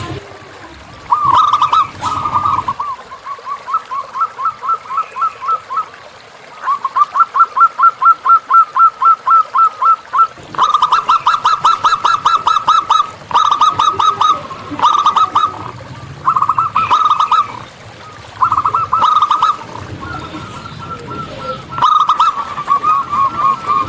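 Zebra doves (perkutut) cooing: run after run of quick, short, repeated notes, each series lasting a second to a few seconds, with brief pauses between them.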